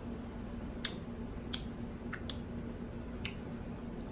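A person chewing chicken nuggets with the mouth closed, with about five short wet mouth clicks and smacks, over a steady faint hum.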